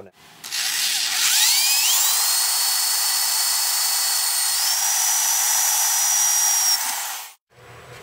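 Handheld electric drill boring out pre-punched holes in a small metal bracket held in a vise. The motor whine rises as it spins up about a second in, holds steady, steps higher about halfway through, then stops abruptly near the end.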